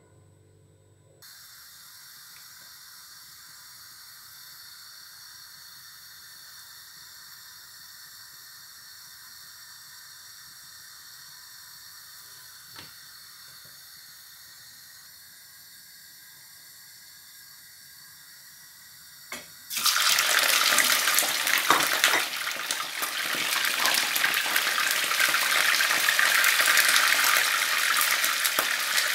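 Fish frying in hot vegetable oil in a frying pan. A faint steady hiss comes first while the oil heats; about two-thirds of the way through, a small knock is followed at once by loud, dense sizzling and crackling as the fish goes into the oil, and the sizzling carries on.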